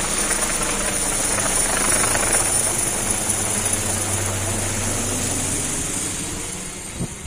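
Helicopter flying low overhead: steady rotor and turbine noise with a low hum, swelling a couple of seconds in and fading away near the end.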